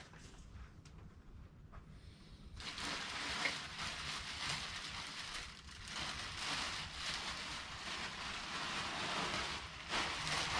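Clear plastic bag crinkling and rustling as it is pulled off a miter saw. It starts about two and a half seconds in and goes on steadily after that.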